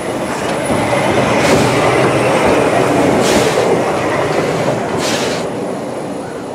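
Hunslet Austerity 0-6-0ST saddle tank steam locomotive running slowly past, with wheels rumbling on the rails, loudest as it passes close by. Three short hissing chuffs come about two seconds apart.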